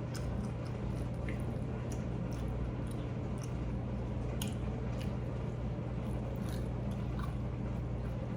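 A person chewing mouthfuls of taco egg roll close to the microphone: scattered small mouth clicks and smacks. A steady low hum sits underneath.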